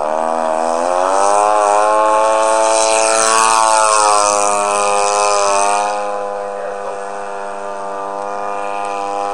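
Engine and propeller of a radio-controlled Staggerwing biplane model at takeoff power. The pitch climbs over the first second as it speeds up for takeoff and drops as the plane passes close by about three to four seconds in. It then runs on steady and quieter as the plane climbs away.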